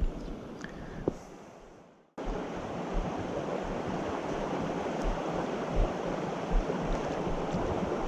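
Steady rushing of river rapids over stones, an even wash of water noise that cuts in after a brief dropout about two seconds in.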